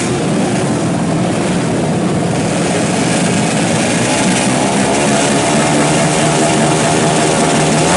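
Honda Astrea Grand drag bike's single-cylinder four-stroke engine held at high, steady revs on the start line, loud and continuous.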